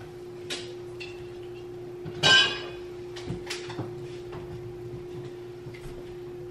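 Refrigerator door opened and items handled inside: a few light clicks and a short ringing clatter about two seconds in, over a steady low hum.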